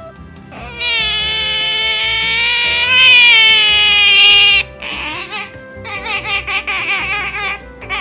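Asian small-clawed otter giving a loud, high-pitched whining call of about four seconds that rises a little near its end and cuts off sharply, then a string of shorter wavering squeaks, over background music.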